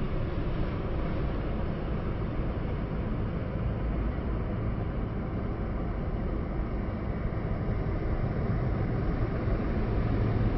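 Street traffic: a box truck passing close by and driving off over a steady traffic rumble, with a low engine hum growing near the end as another truck approaches.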